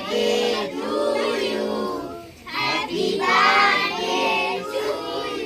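A group of children singing together in chorus, in sung phrases with a short break about two seconds in.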